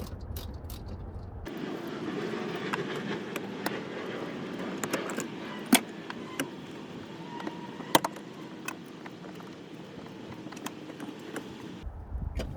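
Hand-tool work on a minivan's interior trim: scattered metallic clicks, clinks and small rattles of a ratchet screwdriver and loose metal parts. Two sharp knocks stand out, a couple of seconds apart near the middle.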